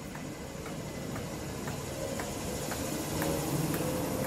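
Class 318 electric multiple unit pulling out of a station, its motor tones rising and growing louder as it accelerates. A sharp tick sounds about twice a second throughout.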